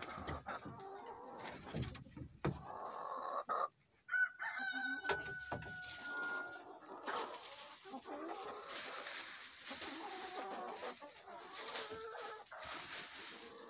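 Chickens clucking in the coop, with one long drawn-out call about four seconds in that lasts about two seconds. In the first few seconds, a hand scraper rasps and knocks on the wooden nesting-box shelf.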